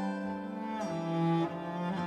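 Cello playing long bowed notes, moving to a new, slightly lower note a little under a second in.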